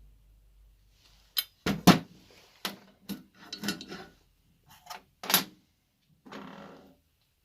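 Metal parts of a Dragon winch being handled during disassembly: a run of sharp clicks and knocks, then a short scraping rattle near the end.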